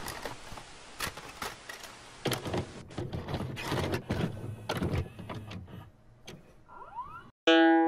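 Hissy static with scattered clicks and crackles, in the manner of a worn VHS tape, ending with a few short rising glides. A keyboard chord comes in near the end.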